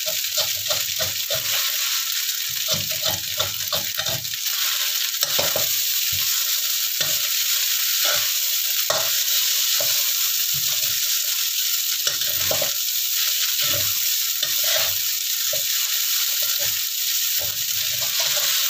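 Rice vermicelli and winged beans sizzling steadily in a hot wok, with a metal spatula scraping and knocking against the wok at irregular intervals as it is stirred and turned. The noodles are being fried hot enough to scorch slightly into a crust.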